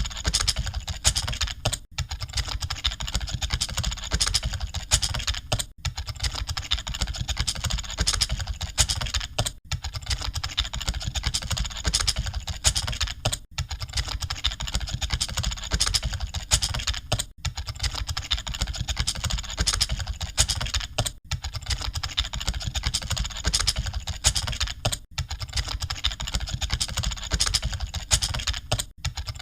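Computer keyboards being typed on continuously, a dense stream of overlapping key clicks like a hall of people typing at once. There are brief gaps about every four seconds.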